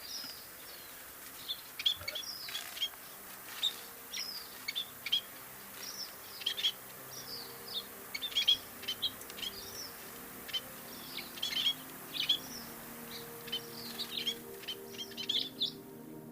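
A flock of scaly-breasted munias giving many short, high chirping calls in quick irregular succession. A faint sustained musical drone comes in underneath about a third of the way through.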